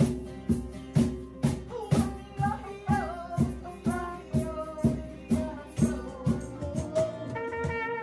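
Instrumental band music: a drum kit keeps a steady beat of about two hits a second under a brass melody line.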